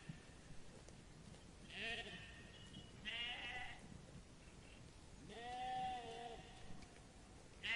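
Sheep bleating: three separate bleats with a wavering pitch, the longest about five to six seconds in, and another starting right at the end.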